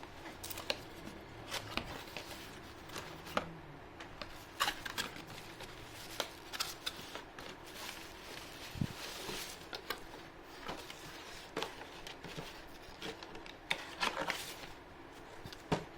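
Cardboard box and its packing being handled and opened: irregular clicks, taps and short rustles as the contents are taken out.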